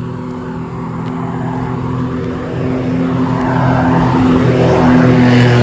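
A bus's engine drone with steady low hum tones, growing louder as it approaches and loudest about five seconds in.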